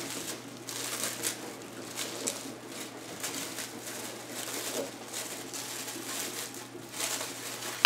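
Crinkly wrapping rustling and crackling in short, irregular bursts as hardtack biscuits are unwrapped by hand.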